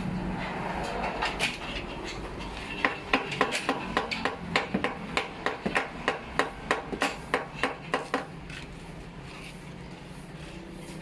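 Repeated hammer taps, a steady run of about three to four sharp blows a second lasting about five seconds, then stopping, over a steady low hum.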